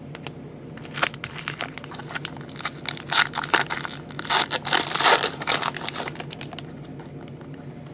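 Trading card pack wrapper being crinkled and torn open, a run of crackling, rustling bursts for a few seconds in the middle, then quieter handling near the end.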